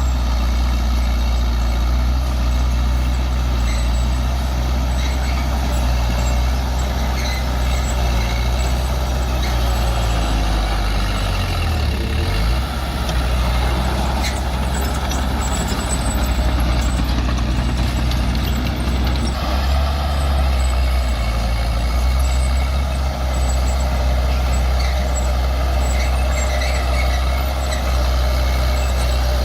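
Bulldozer's diesel engine running hard and steadily as it pushes earth, its note dipping briefly about twelve seconds in before settling back.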